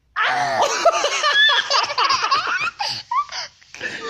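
A young boy laughing hard in a long, loud fit that breaks off about three seconds in, then starts up again near the end.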